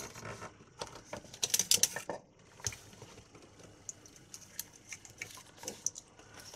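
Scattered light clicks and rustles of hands handling a die grinder's plastic housing, end cap and wiring, busiest about a second in, with one sharper click near the middle.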